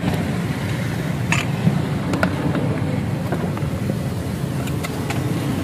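Steady street traffic noise, with a few light clicks scattered through.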